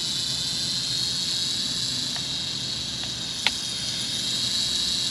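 ATTOP X-Pack 10 mini quadcopter's motors and propellers running with a steady high-pitched whine, with one short click about three and a half seconds in.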